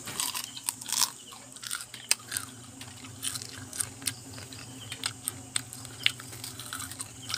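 Biting and chewing deep-fried crispy native crab, the fried shell crunching and crackling in short irregular bursts, over a faint steady low hum.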